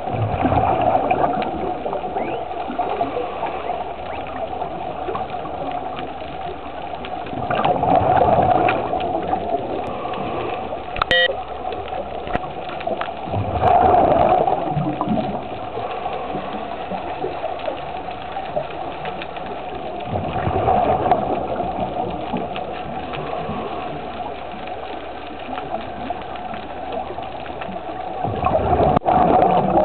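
Underwater recording of a scuba diver breathing through a regulator: a steady hiss with a gurgling rush of exhaled bubbles about every six to seven seconds.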